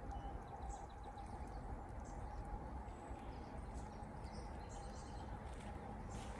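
Outdoor background noise with a steady low rumble and a steady hum, with faint, brief bird chirps scattered through it.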